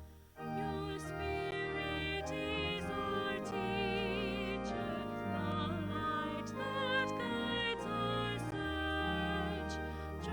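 Slow, sustained church music with long held chords and a melody line sung or played with vibrato.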